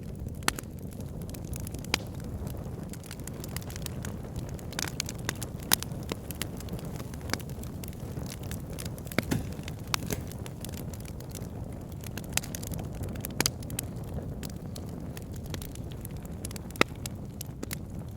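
Campfire burning: a steady low rumble of flames with irregular sharp crackles and pops from the burning wood, a few of them louder than the rest.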